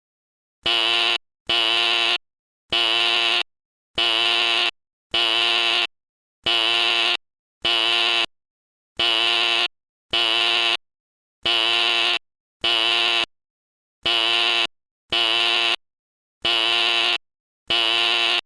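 Fire alarm going off: a buzzing alarm horn in short on-off blasts, about one a second, some fifteen in all.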